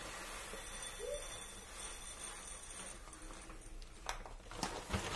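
Dry rice grains pouring from a plastic bag into a ceramic bowl: a steady hiss of falling grains, with a few light clicks near the end.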